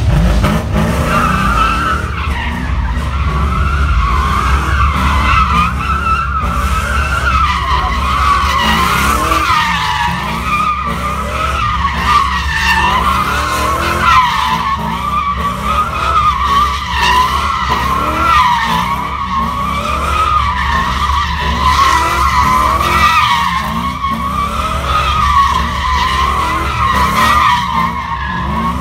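Car tires squealing without a break as a car spins donuts on the pavement, the squeal's pitch wavering up and down, over the low rumble of its engine.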